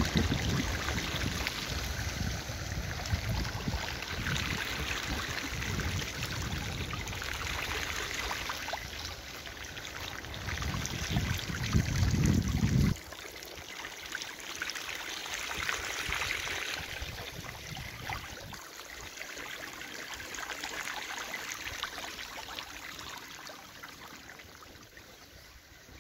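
Shallow floodwater running across a street, a steady rushing and trickling of water. Low wind rumble on the microphone in the first half stops abruptly about halfway through, and the water sound slowly fades toward the end.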